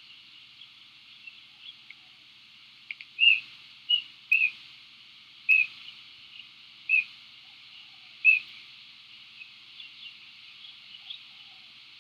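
A bird giving short, high chirping calls: six loud ones about a second apart through the middle, with fainter chirps before and after.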